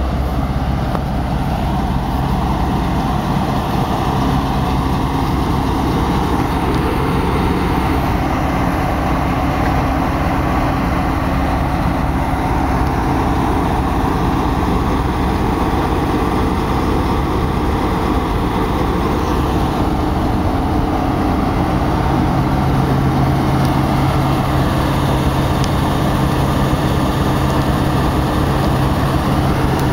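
Diesel locomotive engine idling with a steady low hum; a deeper tone in the hum grows stronger about two-thirds of the way through.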